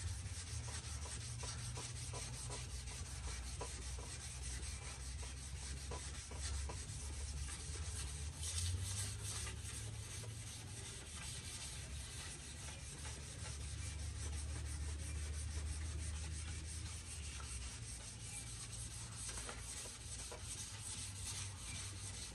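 Hand wet-sanding of glazing putty (masilla) on a car fender with a rubber sanding block and 320-grit 3M sandpaper, water trickling over the panel: a steady back-and-forth rubbing, over a low steady hum. The putty is being smoothed flat, not stripped off, until nothing can be felt under the hand.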